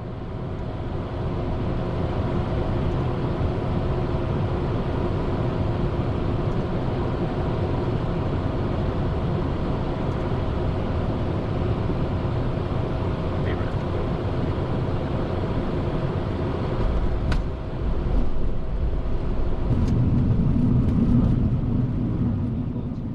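Steady machine running noise with a low rumble and a few faint steady hum tones; a single click about 17 seconds in, and the low rumble swells briefly near the end.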